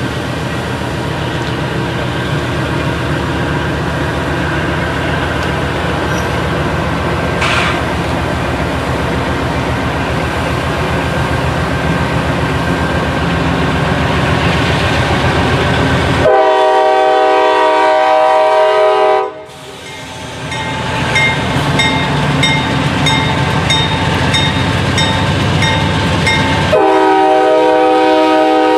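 Approaching freight train led by a GE C40-8W diesel locomotive, its engine and wheels rumbling louder as it nears. Over halfway through, its Nathan K5LA five-chime horn sounds one long blast of about three seconds. A second blast starts near the end.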